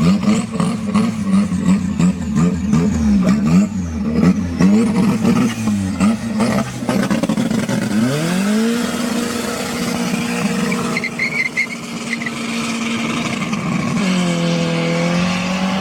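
Modified car engine revved in a quick series of throttle blips, with short sharp cracks among the revs. It then climbs to a high pitch and holds it steady for several seconds, and drops and climbs again near the end.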